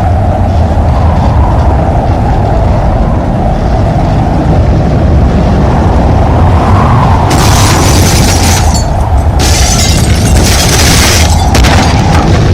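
Storm wind buffeting the microphone: a loud, steady deep rumble, joined by patches of hiss from about seven seconds in.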